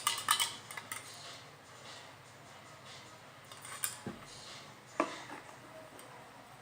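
Homemade slime being poked and squished by hand, giving a quick run of small wet clicks and crackles in the first second, then a few soft isolated pops.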